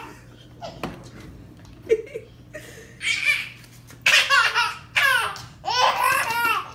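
Baby laughing in several high-pitched belly-laugh bursts, starting about three seconds in, after a quieter stretch broken by a sharp tap about two seconds in.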